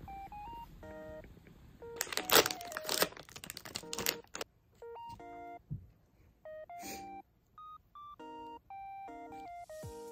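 A simple electronic melody of plain, evenly held beeping notes that step up and down in pitch. About two seconds in, plastic packaging crinkles and rustles loudly for a couple of seconds, with a shorter rustle near seven seconds.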